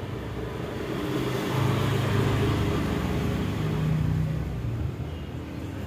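Motor vehicle engine passing close by in street traffic, its low hum swelling to its loudest in the middle and fading toward the end.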